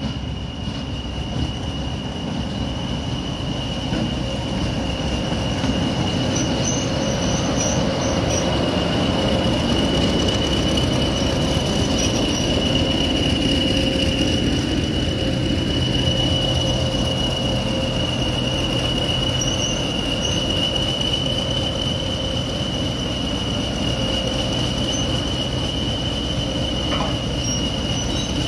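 English Electric Class 20 diesel locomotive D8188 drawing its train slowly past: low engine and wheel rumble that grows louder about midway as it passes, under a steady high-pitched whine.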